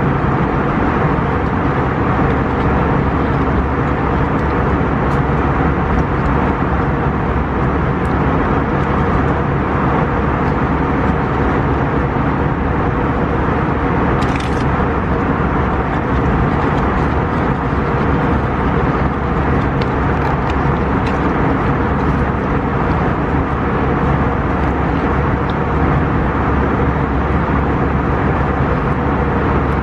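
A steady, loud, unchanging rumbling noise with a low hum under it and a brief hiss about halfway through.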